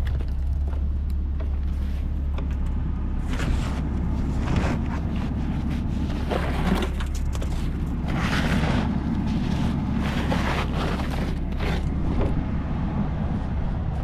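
Wind buffeting the microphone as a steady low rumble, with a series of short rushing or scraping sounds, one every second or two.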